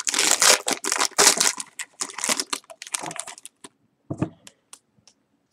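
Foil trading-card pack wrapper being torn open and crumpled by hand: a dense run of crinkling for about the first three seconds, thinning to a few scattered light clicks near the end.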